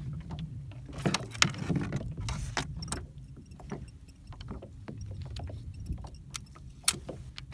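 Clicks, knocks and rattles of a fishing rod and spinning reel being grabbed out of a rod holder and handled in a small boat, busiest in the first few seconds, over a steady low rumble.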